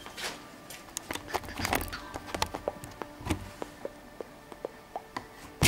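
Light hammer taps on a lathe's loosened compound slide: an irregular series of sharp metallic taps, some in quick clusters, with a faint ringing between them. The compound is being nudged round to correct a taper that is too steep.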